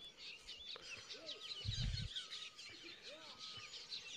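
Small birds chirping and twittering faintly, with a few lower, arched calls from another bird. A brief low thump sounds about halfway through.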